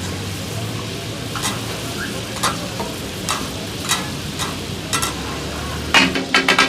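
Brain masala sizzling on a hot tawa while metal spatulas scrape and tap it now and then. Near the end, the spatulas start a fast run of loud clanks as the brain is chopped takatak-style on the griddle.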